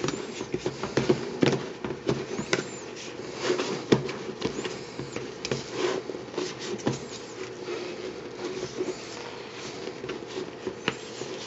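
A wooden stirring stick churning a damp, gritty mix of ground clay kitty litter and vermiculite in a plastic tub, with irregular scrapes and knocks against the tub's wall and bottom.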